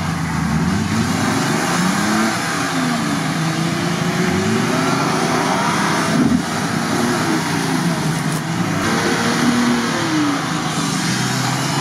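Nissan Patrol Y61 engine revving up and down repeatedly as the 4x4 churns through deep mud and water.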